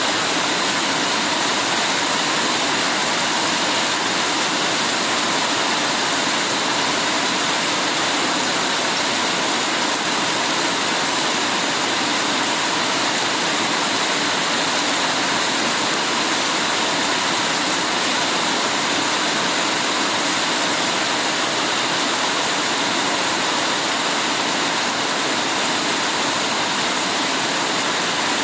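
Heavy rain falling steadily, a dense, even hiss that doesn't change.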